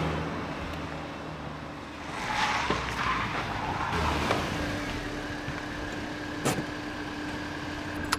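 Small Renault Clio hatchback driving up and slowing to a stop, engine running, with a steady hum in its last few seconds and a single click partway through.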